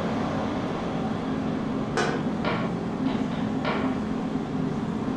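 A game controller thrown into a flat-screen TV: a sharp knock about two seconds in as it hits and cracks the screen, then three lighter clatters as it drops onto the tile floor. A steady low hum runs underneath.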